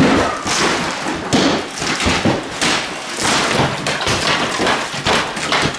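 Hammers and crowbars hitting and prying at plaster walls during interior demolition: irregular thuds and knocks, sometimes several in a second.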